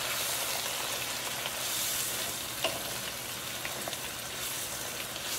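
Mushrooms, shallots and garlic sizzling steadily in a hot skillet as white wine cooks down, with a few light clicks, the loudest about two-thirds of the way in.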